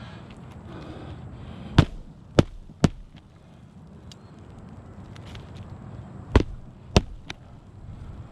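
Hammer blows on an asphalt-shingle roof: five sharp strikes, three within about a second and then two more a few seconds later.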